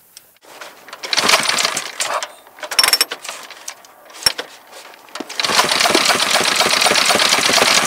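Vintage V-twin motorcycle engine being started: it fires in short bursts, then catches a little after five seconds and keeps running, firing on only one cylinder.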